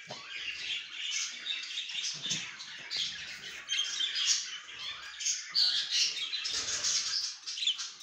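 A room full of budgerigars chattering: many overlapping chirps and warbles at once, with a few louder chirps past the middle.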